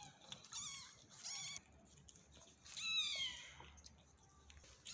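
A young kitten mewing three times, short high calls that fall in pitch, the third the loudest: a hungry kitten trying to nurse.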